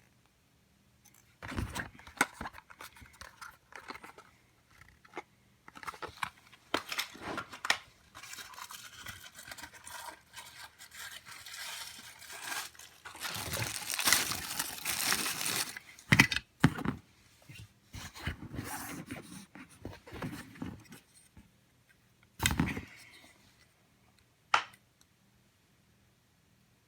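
Hands opening a toy's packaging: tearing, crinkling and scraping with scattered knocks and clicks. The longest, loudest stretch of rustling comes about halfway through, followed by a few separate knocks.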